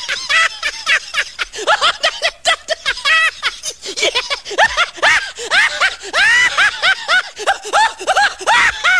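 High-pitched laughter, a rapid run of short giggles that each rise and fall in pitch, several a second.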